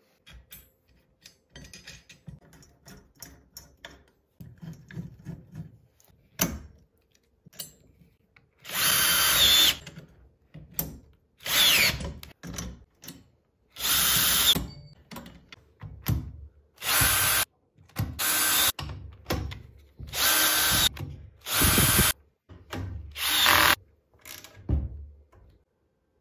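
Handheld power drill run repeatedly in short bursts of about a second each, as when driving screws. Before it come small clicks and rattles of hardware being handled.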